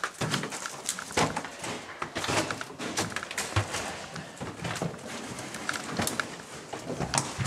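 Footsteps crunching and scraping over debris on a hard floor, an irregular run of short clicks and knocks.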